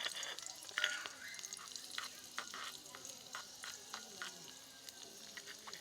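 Food sizzling in hot oil in a pan while a spatula stirs it, with several short knocks and scrapes of the spatula against the pan, the loudest about a second in.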